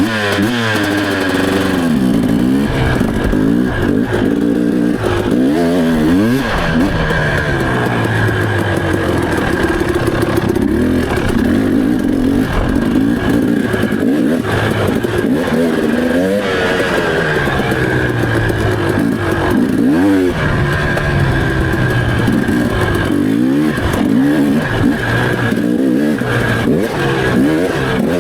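Dirt bike engine being ridden, revving up and down over and over as the throttle is opened and closed.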